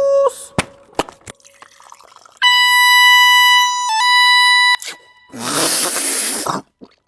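A string of sound-effect clips: a few sharp clicks, then a loud steady horn-like tone for a little over two seconds, then a burst of hissing noise about a second long.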